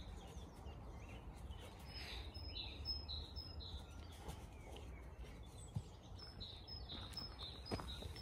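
A small bird singing, repeating a short two-note phrase over and over, in one run about two seconds in and another near the end, over a low steady rumble.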